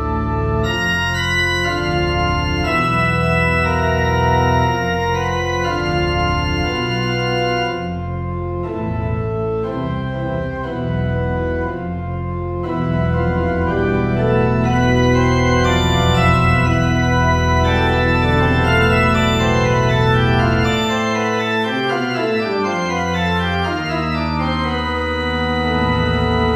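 Organ playing a slow air: sustained chords over a moving bass line. About two-thirds of the way through, the bass drops out while the upper voices step downward, and the bass returns near the end.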